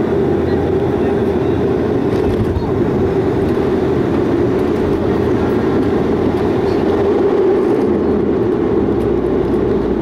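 Cabin noise of a Eurolot turboprop airliner rolling along the runway on its landing roll: a steady, loud engine and propeller drone heard through the fuselage.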